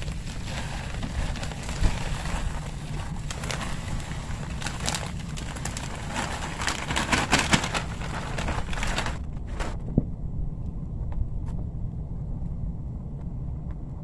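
Potting mix pouring out of a plastic bag into a planter: a steady rushing, crackling trickle of soil with the bag crinkling, which stops suddenly about nine seconds in, leaving a few faint clicks.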